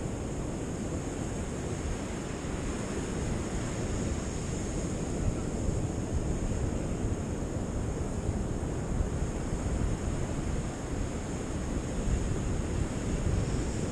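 Ocean surf breaking on a sandy beach, with wind buffeting the microphone.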